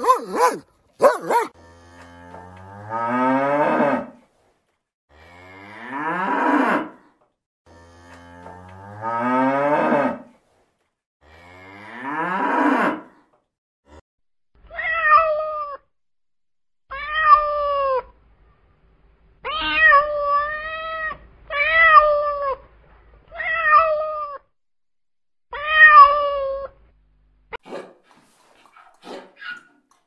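A couple of short dog barks at the start, then a cow mooing four long, low times, then a cat meowing about eight times in short, clear calls.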